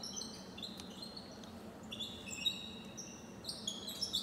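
Small birds chirping: many short, high chirps at several pitches at once, growing busier in the second half, over a steady low hum.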